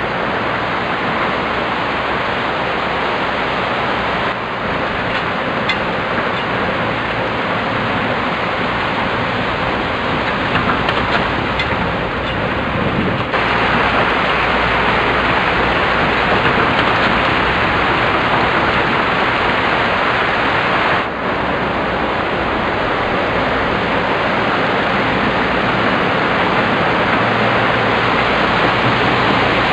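Muddy floodwater rushing and churning in a torrent over rocks and debris, a loud steady rush of white water from a stream in flood. It grows louder about 13 seconds in.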